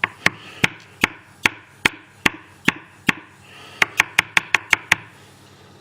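A series of sharp clicks from small metal lock parts being handled on a hard surface as the deadlock's cylinder is gutted: evenly spaced at first, about two or three a second, then a quicker run of about eight near the end before they stop.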